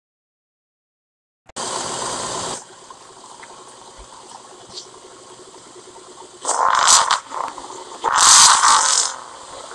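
A car's exhaust blowing out under the car as a noisy hiss, with smoke puffing from the tailpipe. A loud hiss comes about a second and a half in, then a lower steady hiss, then two louder gushes near the end.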